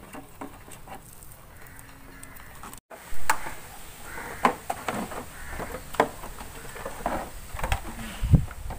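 Empty plastic bottles being handled, tapped and knocked against one another and a metal frame as they are tied on, giving a run of sharp clicks and hollow taps after about three seconds, with a dull thump near the end.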